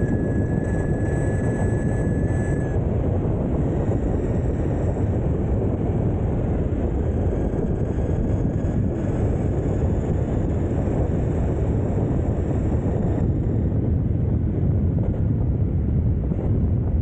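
DIY belt-drive electric mountainboard riding on asphalt: a steady low rumble of its big off-road tyres on the road mixed with wind buffeting the microphone. A faint high whine cuts off about three seconds in.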